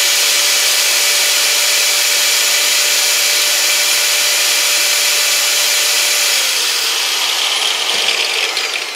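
Electric angle grinder running at full speed together with a heat gun blowing on full: a loud, steady whine over a rush of air. About six and a half seconds in the grinder is switched off and its whine falls in pitch and fades as it spins down.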